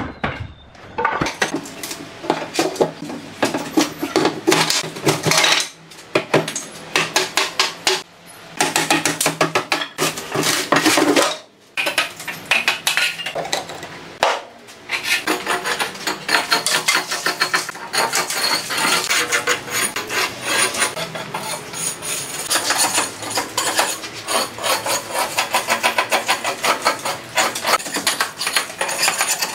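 Wooden formwork boards clattering and knocking as they are pried off a freshly cast concrete countertop with a steel bar. In the second half a steel bar scrapes and taps along the concrete edge of the sink opening in fast, repeated strokes.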